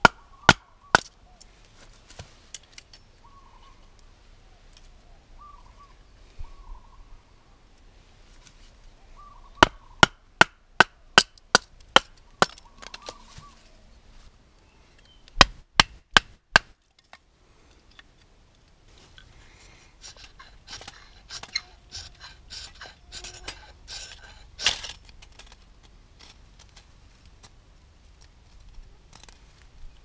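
A wooden baton striking the spine of a fixed-blade knife, driving it through a stick on a stump to split kindling: sharp knocks in runs, about two a second at their quickest. Later there is a stretch of lighter crackling and scraping.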